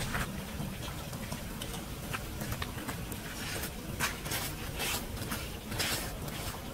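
Footsteps in flip-flops splashing through shallow water on wet pavement, a few short splashes about four to six seconds in, over a steady low rumble.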